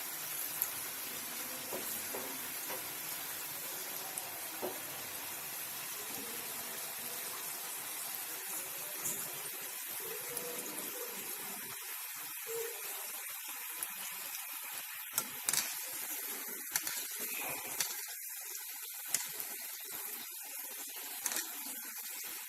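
Gujiya (filled dough pastries) deep-frying in hot oil in a kadhai: a steady sizzle with scattered crackles and pops.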